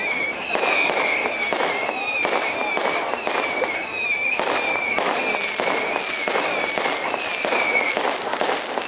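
Fireworks going off in the air with repeated sharp bangs and crackles, over the voices of a crowd. A high, wavering whistling tone keeps sounding in broken stretches above them.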